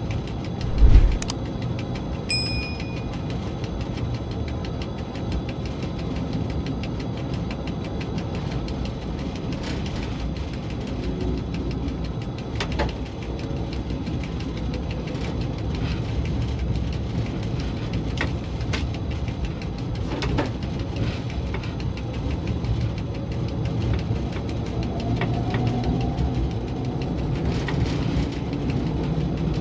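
ST44 'Gagarin' diesel locomotive's engine running steadily, heard from inside the cab. There is a heavy thump about a second in, a short high beep soon after, and scattered sharp clicks.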